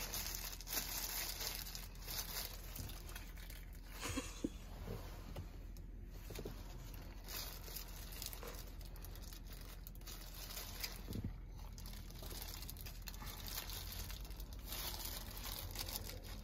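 Disposable plastic glove crinkling and rustling as gloved hands squeeze and shape rice for sushi.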